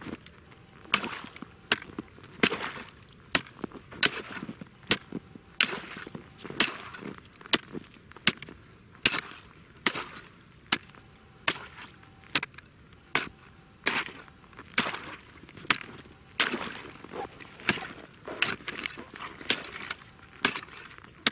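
A forged three-sided steel ice chisel chopping into river ice, striking a little more than once a second, with crunching and splintering of ice between the blows.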